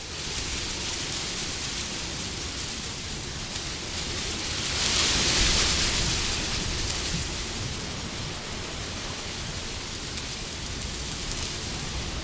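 Steady rushing wind, with a gust that swells about five seconds in and dies away again.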